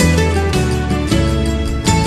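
Instrumental break in a sertanejo love song: the band plays on with a strong bass line and no singing.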